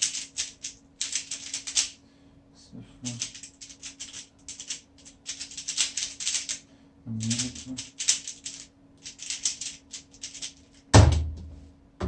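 Rubik's cube being turned fast, clicking and rattling in quick bursts of moves with short pauses between them. About eleven seconds in there is a single loud thump.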